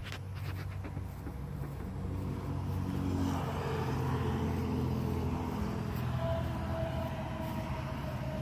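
Road traffic: a steady low engine hum, with a passing vehicle swelling up about three seconds in and carrying a whine that drops slightly in pitch near the end.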